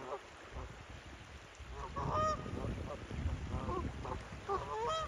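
A pair of Canada geese honking: a few short calls about two seconds in, and a run of honks near the end, over a low rumble underneath.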